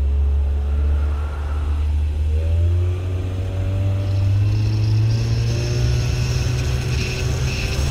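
Boat engine running, rising in pitch about two to three seconds in as it speeds up, then holding steady, with a faint high whine joining near the middle.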